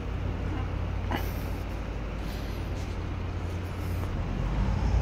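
Steady low rumble of a large vehicle engine running, growing slightly louder toward the end.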